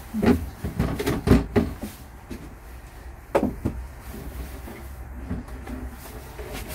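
Knocks and clunks of a wooden table top and its pole leg being lifted off and taken apart: a cluster of sharp knocks in the first second and a half, and one more about three and a half seconds in.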